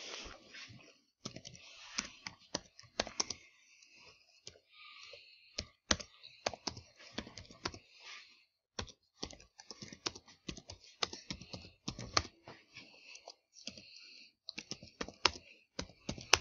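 Typing on a computer keyboard: irregular runs of key clicks, several a second, with short pauses between words.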